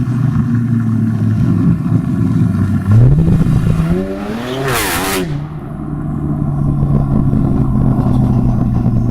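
Modified performance car engines at a car meet: a steady idle, then a sharp rise in revs about three seconds in. A car accelerates close past with a loud rush of engine and exhaust noise about five seconds in, and the idle settles back to a steady hum.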